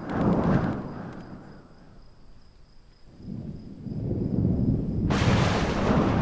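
Thunder: a low rumble that fades over a second or so, then a second roll that builds from about three seconds in and breaks into a sharp crack about five seconds in.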